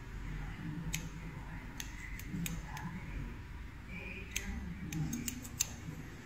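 Barber's scissors snipping beard and moustache hair: a string of short sharp clicks, coming quicker in a run of snips between about four and five and a half seconds in.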